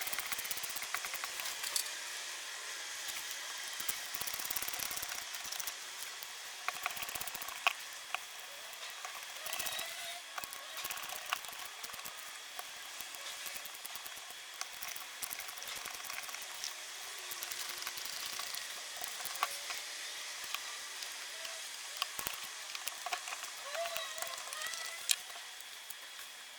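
Scattered light clicks and clinks of small metal parts and tools being handled while working on a cordless impact driver's internals, with a few brief squeaks between them.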